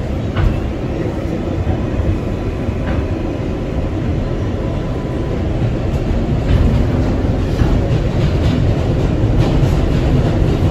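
Kawasaki R188 subway car running on the track, heard from inside the car: a steady low rumble with the wheels clacking over rail joints, growing gradually louder.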